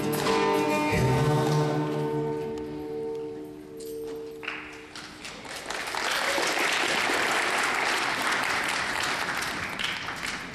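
Music ending on a long held chord that fades out over the first four or five seconds, followed by a large group applauding steadily.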